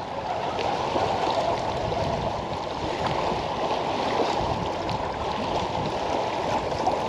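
Steady rushing noise of strong wind buffeting the microphone, mixed with choppy lake water.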